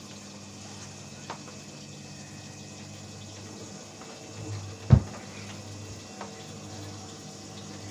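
Indesit washing machine mid-wash: water running and sloshing inside the machine over a steady low hum, with a few small clicks and one sharp thump about five seconds in.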